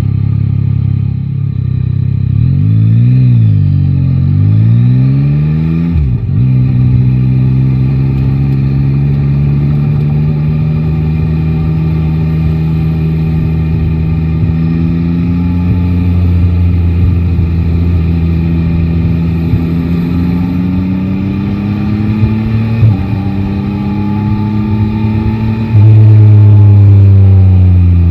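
Yamaha Tracer 9 GT's three-cylinder engine riding through city traffic: a couple of short rises and dips in revs early on, a sharp change about six seconds in, then a long, slow climb in pitch as it pulls. Near the end the sound jumps suddenly louder and then drops in pitch.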